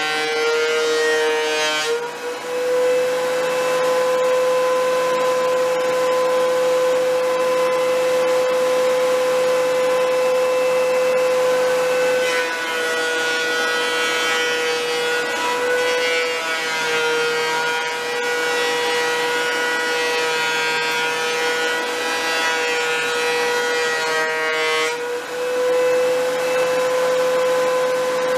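DeWalt benchtop thickness planer running with a loud, steady high-pitched whine as boards are fed through. The pitch sags under the load of each cut: it is lower at the start, rises about two seconds in, sags again from around twelve seconds, and comes back up near the end.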